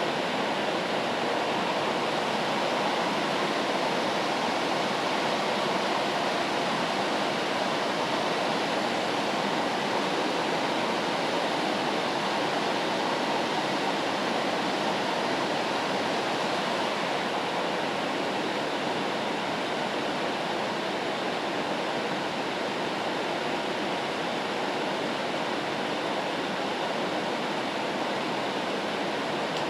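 Steady rain noise played as white noise: an even, unbroken hiss with no separate drops, thunder or voices standing out.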